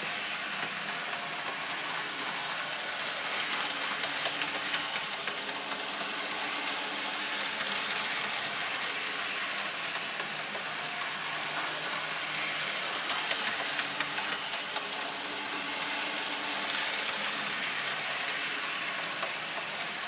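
N scale model trains running on the track: a steady whir of the small locomotive motors and wheels on the rails, with a few light clicks now and then.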